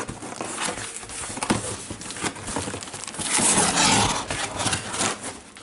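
Cardboard box flaps being pulled open, then crumpled packing paper rustling and crinkling, louder from about three seconds in, with scattered small knocks and scrapes.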